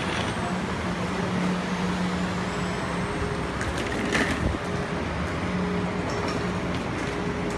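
Steady mechanical hum of the airport people-mover train standing at the platform, with a low even tone, and a few knocks about four seconds in as passengers step aboard.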